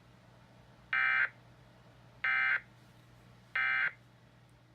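Emergency Alert System end-of-message signal: three short, identical buzzy data bursts of SAME code, about 1.3 s apart, marking the close of the severe thunderstorm warning.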